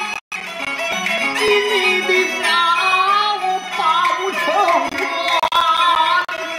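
A Peking opera aria sung in long, wavering, melismatic held notes over bowed jinghu fiddle accompaniment, with a brief dropout in the sound just after the start.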